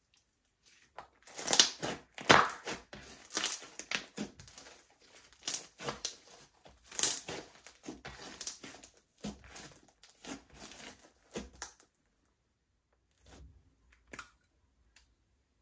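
Slime being squished and kneaded by hand, with irregular crackling and popping. The crackling runs on for about ten seconds, stops, and a few faint clicks follow near the end.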